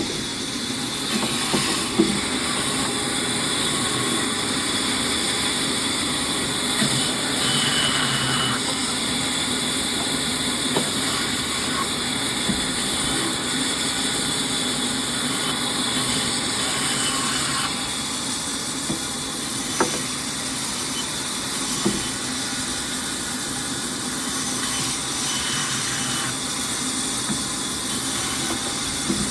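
A motorized firewood machine running steadily, with a few sharp knocks of wood scattered through.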